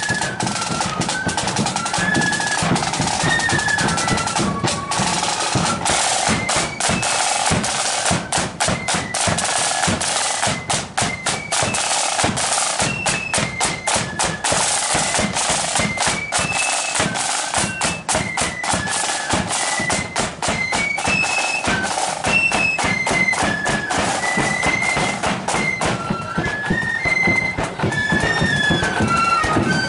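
Marching flute band playing: flutes carry a stepping melody over rapid snare drum strokes and rolls, with a bass drum underneath.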